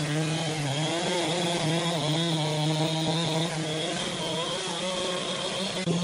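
Chainsaw cutting into a large log, running steadily under load, its pitch wavering and dipping briefly a couple of times as the bar bites into the wood.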